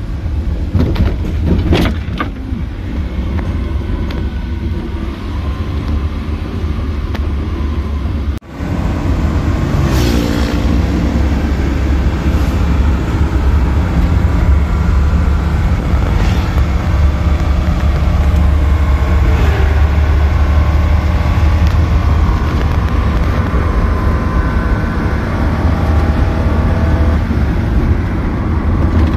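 Small pickup truck driving along a road, heard from its cargo bed: a steady, heavy low rumble of engine and road noise, with the engine note rising about ten seconds in as it picks up speed.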